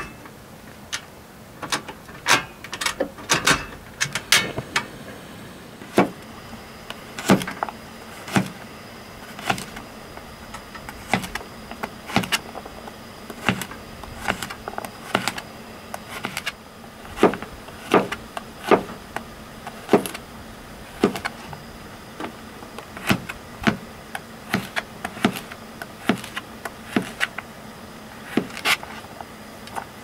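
A long run of irregular sharp knocks and clicks, roughly one or two a second, some with a short ring.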